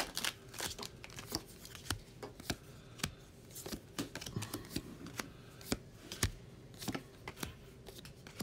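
Magic: The Gathering cards being flicked through by hand and laid down onto a playmat: a string of light, irregular clicks and snaps.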